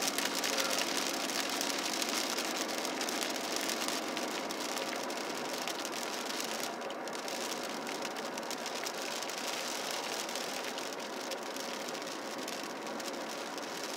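Rain hitting a moving car's windshield and roof, a steady dense ticking heard from inside the cabin over the hiss of tyres on the wet road.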